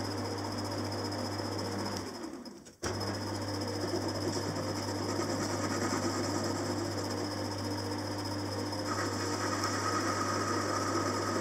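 Small metal lathe running with a steady motor hum while it turns a cast flywheel. The sound dips out for under a second about two seconds in and returns abruptly, and a higher steady tone joins near the end.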